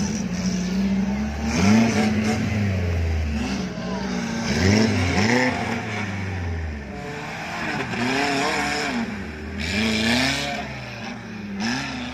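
Suzuki Jimny off-road vehicle's engine revving hard, its pitch rising and falling over and over.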